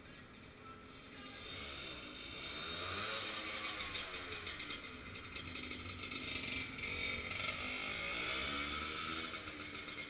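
Honda MTX125 two-stroke single-cylinder trail bike revving up and down as it accelerates and brakes around tight cone turns. It gets louder as the bike comes close, with two rises and falls in pitch.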